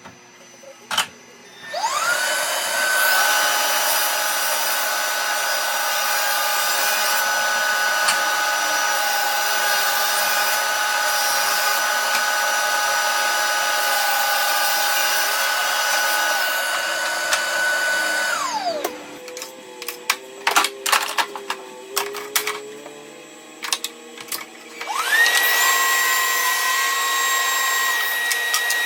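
Festool table saw's motor spinning up about two seconds in and running with a steady high whine for about sixteen seconds before winding down. Clicks and knocks follow, then a motor starts again at a higher pitch near the end.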